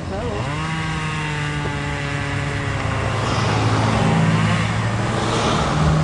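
An engine running steadily, its pitch dropping during the first second and then holding level.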